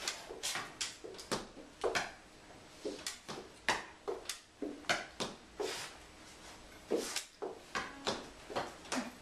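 Tap shoes striking a board stage floor in irregular, sharp taps, about two a second, with a short ring of room reverberation after each.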